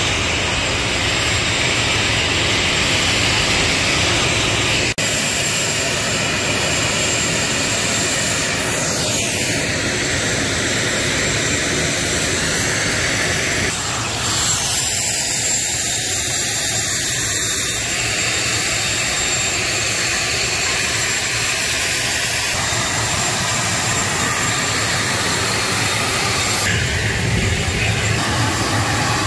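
Turboprop airliner engine running on the ground: a loud, steady, even roar with a thin high whine over it, its character changing abruptly about five and fourteen seconds in.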